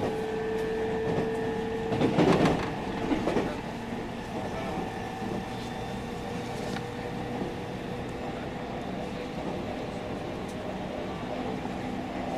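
JR Central 313 series electric train running: a steady hum with several steady tones from the running gear, broken by a loud rattling clatter about two seconds in and a shorter one about a second later.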